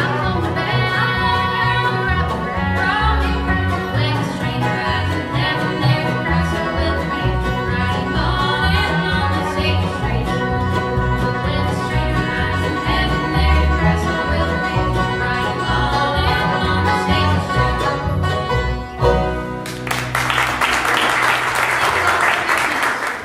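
Bluegrass string band (mandolin, banjo, acoustic guitar and upright bass) playing a gospel number with two women singing close twin harmony; the song ends about four-fifths of the way through and audience applause follows.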